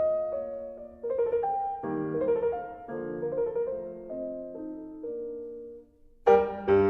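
Background piano music: a gentle melody of single notes, with louder struck chords starting near the end.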